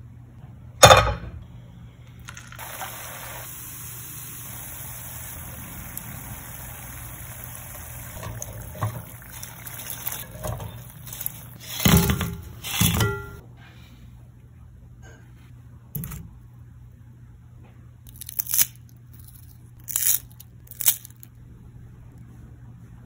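A sharp knock about a second in, then potato rings deep-frying in hot oil: a steady sizzle for about ten seconds, with two heavier thumps as the fried rings are tipped from a wire skimmer onto a paper-towel-lined plate. The sizzle cuts off and a few short handling sounds follow.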